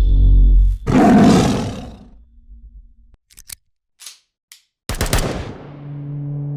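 Edited sound effects: deep booming, roar-like hits, then a few short sharp clicks, then another hit at about five seconds that settles into a low hum and cuts off near the end.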